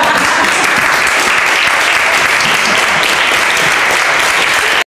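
Audience applauding steadily, a dense clapping that cuts off suddenly near the end.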